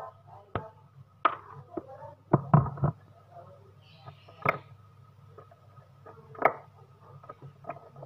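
Scattered clicks and knocks of hand tools and small parts being handled while a refrigerator defrost sensor's wires are joined. A quick cluster of the loudest knocks comes about two and a half seconds in, and single sharp clicks come near the middle and later. A faint steady hum runs underneath.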